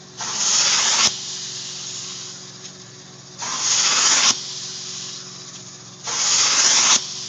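Handheld upholstery cleaning tool drawn across a cotton tapestry sofa cushion in three strokes of about a second each, each stroke a loud hiss of spray and suction that cuts off sharply. A steady machine hum runs underneath between strokes.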